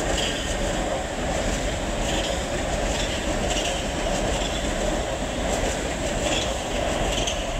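Oslo Metro MX3000 train running past along the tracks: a steady rumble of wheels on rail, with a few brief high-pitched wheel squeaks.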